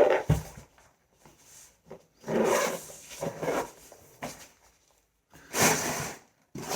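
Boxes and packaging being handled: a knock at the start, then a few rubbing, scraping sounds about a second long each, with a short click between.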